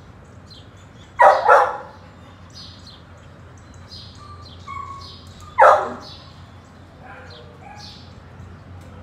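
A dog barking: two quick barks about a second in, then one more bark about two-thirds of the way through.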